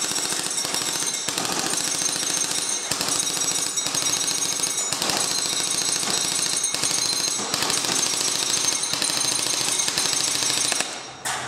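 JG T3-SASF electric airsoft gun (AEG) firing long strings on full auto from a 9.6-volt battery: the gearbox cycles in a rapid, even chatter, with a few momentary breaks, and stops about a second before the end.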